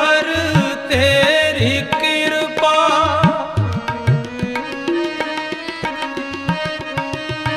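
Sikh kirtan music: a voice sings a drawn-out, wavering melodic line over tabla and held sustained notes, and the singing eases off about halfway while the tabla keeps time.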